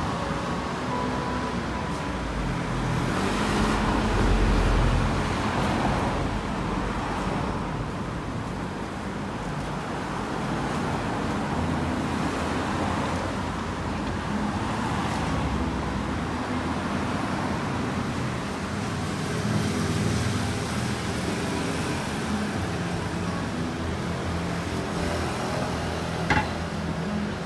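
City street traffic: cars and vans driving past, with engine hum and tyre noise, one vehicle passing close and loud about four seconds in.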